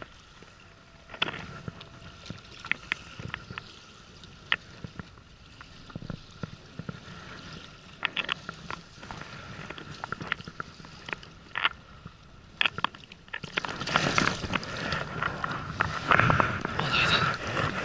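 Baitcasting reel being wound in on a tai-rubber rig, with scattered clicks and knocks and a faint steady whine. About three-quarters of the way in, louder water splashing and sloshing starts as the hooked fish reaches the side of the boat and is grabbed.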